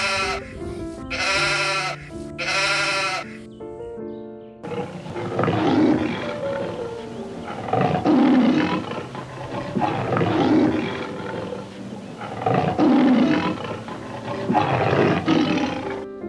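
Background music with animal calls: four bleats about a second apart, then, after a cut, a series of five deep, hoarse calls about two seconds apart.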